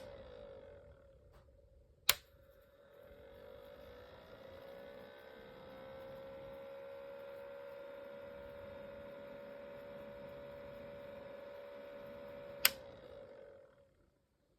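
Faint steady electric hum from a small ultrasonic cool-mist humidifier running. It dies away, comes back about three seconds in with a slight glide in pitch, and then holds steady. Sharp clicks come near the start, about two seconds in, and near the end, after which the hum fades out.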